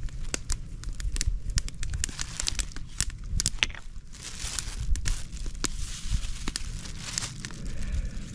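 Thin clear plastic bag crinkling and rustling as it is handled and held open, with quick sharp crackles.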